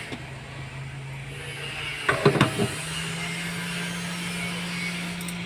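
Hot-air rework station blowing: a steady hum with an airy hiss. A short burst of knocking comes about two seconds in, and then the hum steps up slightly in pitch.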